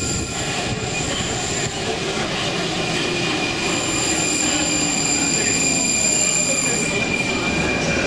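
Prague metro train running into an underground station. Its steady rumbling noise carries a whine that falls slowly in pitch, and from about halfway in a high steady squeal that lasts a few seconds.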